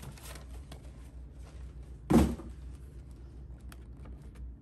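Faint handling noises during a sneaker unboxing, with one loud, dull thump about two seconds in.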